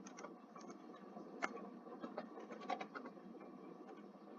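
Faint, irregular clicks of a computer mouse and keyboard over a low background hiss.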